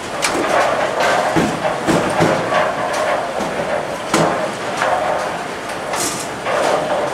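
Busy bowling alley: clatter from balls and pins on the surrounding lanes, with several sharp knocks and a murmur of voices.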